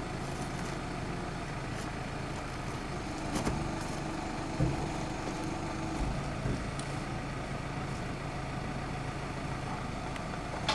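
Case 105 JXU tractor's diesel engine running steadily at idle while it works a homemade crane, with a few short knocks and a brief extra steady hum in the middle.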